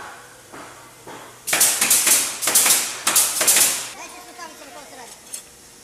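Steel threaded rods and bolts clattering as they are handled, in a run of about five loud bursts over two seconds, with faint voices after.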